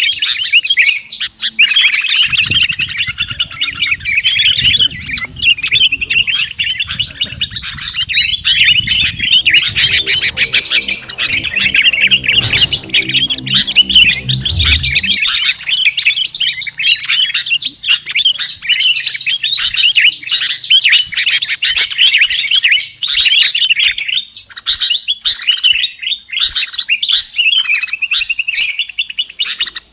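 Sooty-headed bulbuls (kutilang) calling in a dense, continuous chatter of rapid high chirps and twitters, played as a bird-lure recording. A low rumble sits under the calls for about the first half.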